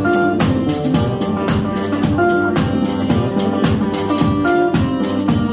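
Small blues band playing live: resonator guitar over a steady kick-drum beat, with held melody notes above, an instrumental passage without singing.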